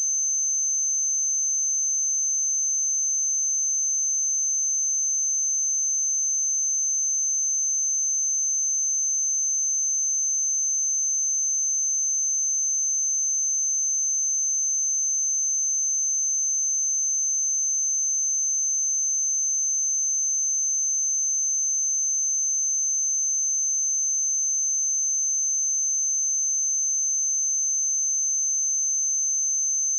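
A pure 6225 Hz sine-wave test tone: one steady, unwavering high-pitched whistle at constant loudness.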